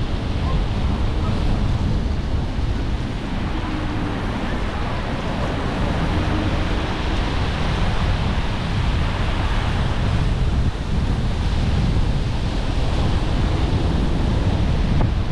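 Steady wind noise rumbling on an action camera's microphone as it rides along on a moving electric scooter, over a continuous hiss of a rain-wet street.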